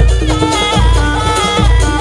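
Loud jaranan sampak music from an East Javanese gamelan ensemble over loudspeakers. A heavy low drum beat falls about every 0.8 s under a wavering high melody.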